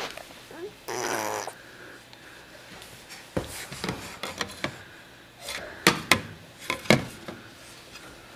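A crawling baby's short vocal squeal about a second in, followed by breathy snorts and huffs and a series of sharp taps and knocks, the loudest about six and seven seconds in.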